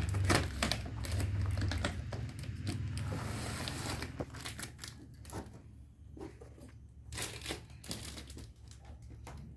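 Clear plastic packing tape being peeled and pulled off a cardboard box, crinkling and tearing, with rustling for about the first four seconds, then quieter scattered rustles and taps as the cardboard box is handled.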